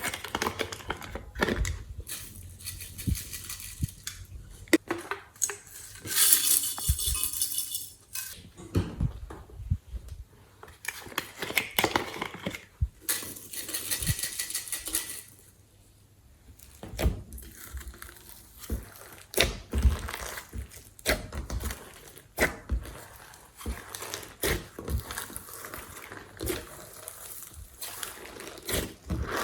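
Glossy slime being mixed and worked by hand: irregular sticky clicks and pops, a few longer hissing stretches, and occasional light clinks.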